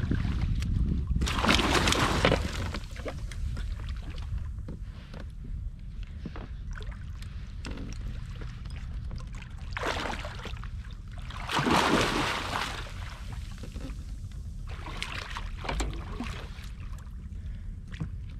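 Water sloshing and splashing around a small inflatable fishing boat in several short bursts, over a steady low rumble.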